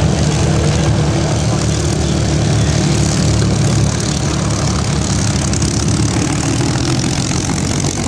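Several Spitfires' piston engines running steadily at low power as the fighters taxi, propellers turning.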